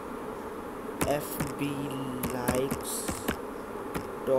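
Steady electrical buzz on a computer microphone, with a few sharp keyboard clicks and short bits of wordless humming from a voice.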